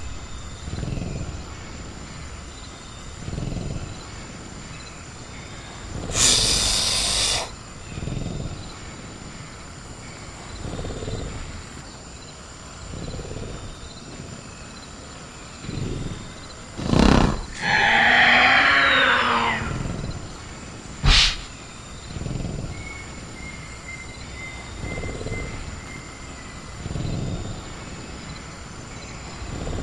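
Sound-designed velociraptor in a cage: low growls about every two seconds, a loud hiss about six seconds in, a sharp crack and then a long screeching call around the middle, and a sharp knock just after. Under it all runs a steady high cricket chirr.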